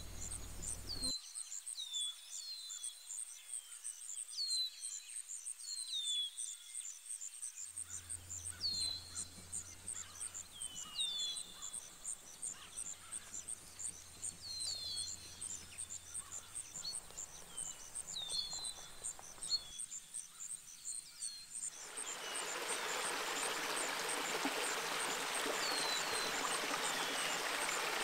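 An insect chirping steadily at a high pitch in quick even pulses, with a bird calling in short falling chirps every second or two. Near the end the steady rush of a stream comes in.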